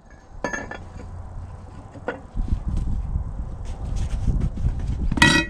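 Steel lug wrench clinking against the truck's wheel lug nuts as it is fitted, with a few light metallic clinks and then a loud ringing clank near the end, over a low rumbling noise from about two seconds in.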